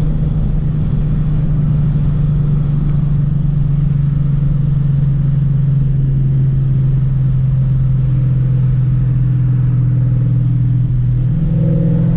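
Ford Mustang GT's V8 engine running steadily under way, heard from inside the cabin as a deep, even drone; its note shifts slightly near the end.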